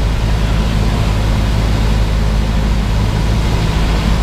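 Cessna 172R's four-cylinder Lycoming engine and propeller running steadily in flight, heard from inside the cabin as an even drone.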